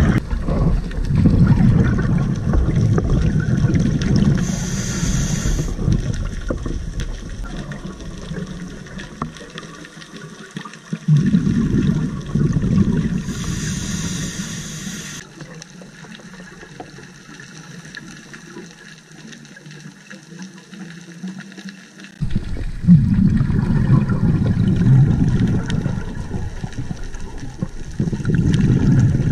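A scuba diver breathing through a regulator, heard underwater through a housed GoPro: loud bursts of exhaled bubbles three times, each lasting a few seconds, and between them a short high hiss of the regulator twice.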